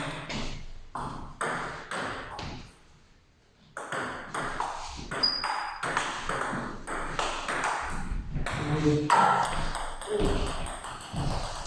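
Table tennis ball clicking: a few bounces in the first two seconds, a short pause, then a rally from about four seconds in, with the ball struck back and forth off rubber-faced bats and bouncing on the table in quick succession.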